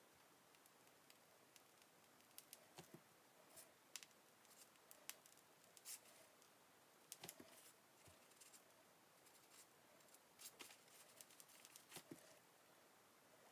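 Near silence with faint, scattered small clicks and crinkles from a plastic piping bag being squeezed while black buttercream is piped.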